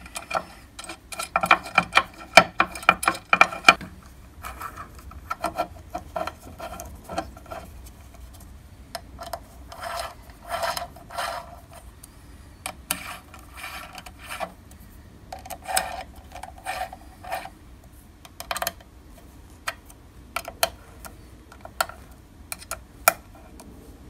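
Steel button-head cap screws being set into a cast-iron machine table and turned in with a hex key: irregular metal clicks and scraping, busiest in the first few seconds and ending in a few sharp single clicks.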